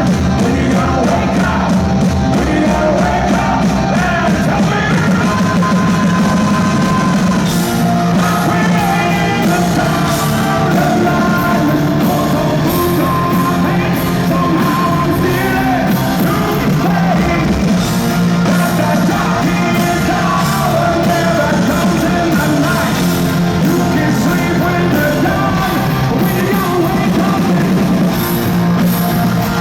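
Hard rock band playing live: loud, steady full-band music with singing.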